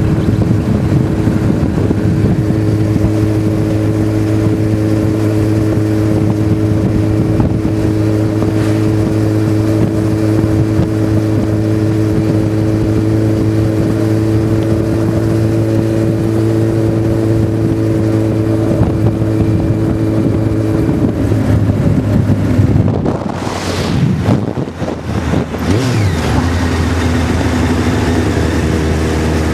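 Motorcycle engine running at a steady cruise, heard from on board over rushing road and wind noise. About two-thirds of the way through, the note drops and briefly falls away as the throttle is rolled off, then settles into a lower, steady note.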